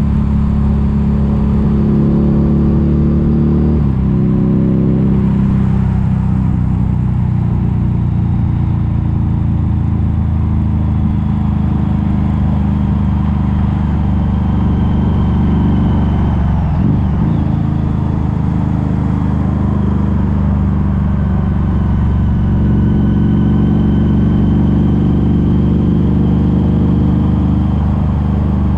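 Harley-Davidson V-Rod Muscle's liquid-cooled Revolution V-twin running under way through Vance & Hines Competition Series slip-on mufflers, with the catalytic converters removed and a custom tune. The engine note stays loud and steady, steps in pitch about four seconds in and wavers briefly past the middle.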